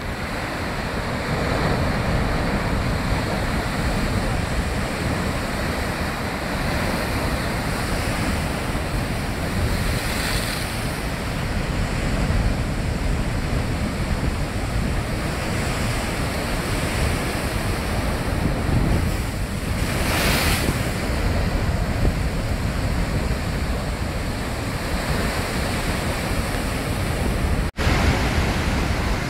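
Rough sea surf breaking on rocks, a continuous loud rush of water with heavier crashes about ten and twenty seconds in, and wind buffeting the phone's microphone. The sound cuts out for an instant near the end.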